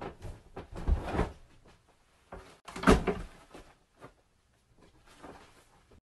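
A few knocks and thumps, the two loudest about one second and three seconds in, with quieter knocks between and near silence toward the end.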